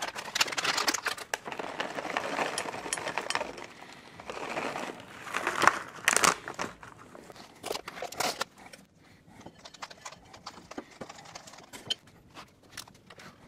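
Shelled pistachios poured from a plastic bag into a bowl of granola cereal: the bag crinkling and the nuts pattering into the bowl for about six seconds, in two pours. After that, scattered small clicks and rustles.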